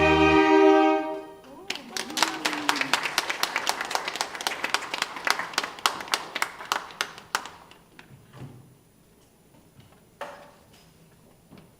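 The final held chord of a saxophone ensemble stops about a second in, and a small audience applauds for several seconds before the clapping thins out and dies away. A single knock follows near the end.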